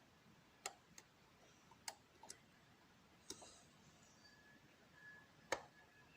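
Faint, irregular metallic clicks of a lock pick working the pins inside a Ruko lock cylinder under tension, about six clicks with the sharpest near the end.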